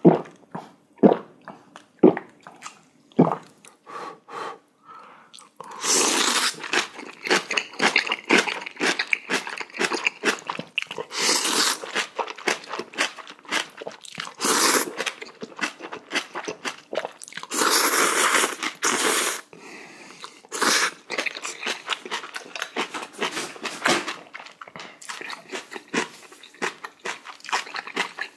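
A person eating spicy jjamppong noodles close to the microphone: sharp chewing clicks for the first few seconds, then repeated noodle slurps about a second long, with chewing and crunching between them.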